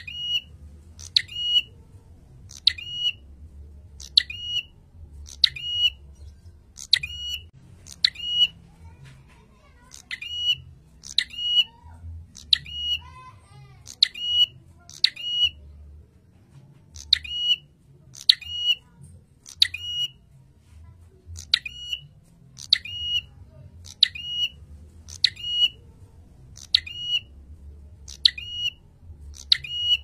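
A caged prinia (prenjak) calling over and over. Each note is short, sharp and high, falls in pitch and ends in a brief steady tone. The calls come about three every two seconds, with two short breaks.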